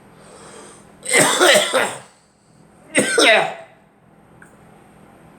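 A person coughing in two fits, about a second in and about three seconds in, each trailing off with a drop in pitch.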